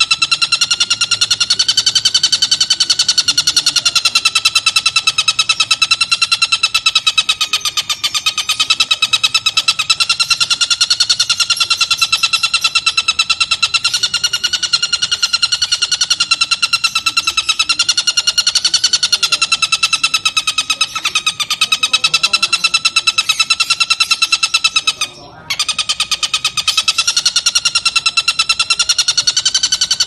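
Oriental dollarbird (tengkek buto) giving its long, unbroken rapid chattering cackle, the "ngekek panjang". The pitch wavers slowly up and down, and the call breaks off once, briefly, near the end.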